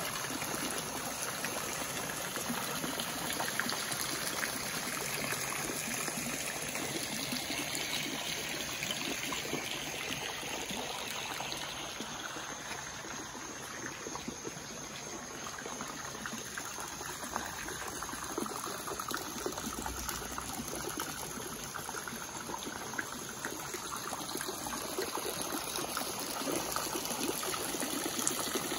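Small rock waterfall of a garden koi pond, water trickling and splashing steadily over the stones into the pond, a little quieter around the middle.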